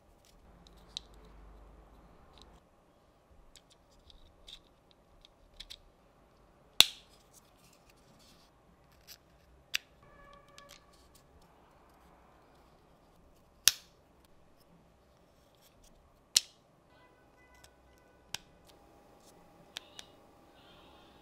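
Small laser-cut plywood parts of a wooden model kit being handled and fitted by hand: sparse sharp clicks and taps with light rustling between, and three louder snaps spread through it.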